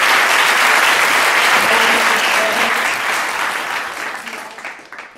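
Audience applauding steadily, fading out over the last second or so.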